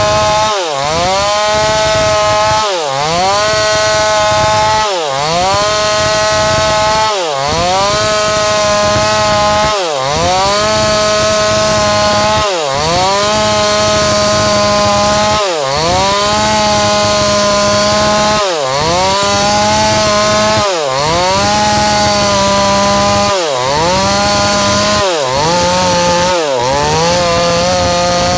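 Chainsaw engine running at high revs. Its pitch dips sharply and climbs back about every two seconds, a dozen times over, and falls away at the very end.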